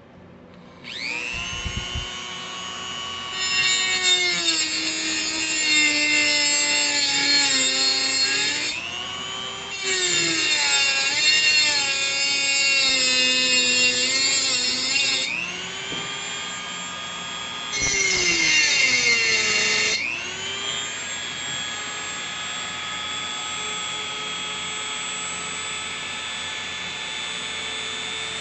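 Bench drill press driven by a treadmill DC motor, spinning up with a rising whine. It then cuts into the work three times with a loud grinding noise, and the motor's whine drops in pitch under each load and rises again as the bit frees. It ends running steadily unloaded.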